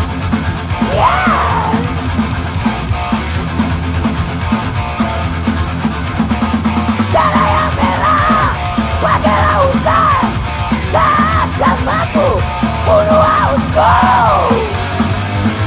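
Indonesian 1990s rock song playing: drums and bass keep a steady beat under a high lead line of bending, wavering notes that grows busier about halfway through.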